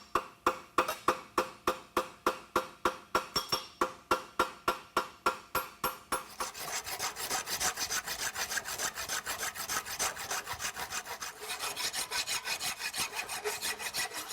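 A file being worked along the edges of a branch of a steel hind toe-cap horseshoe to finish it. It starts as evenly spaced strokes, about three or four a second, with a ringing tone under them, and from about six seconds in turns to faster, denser rasping.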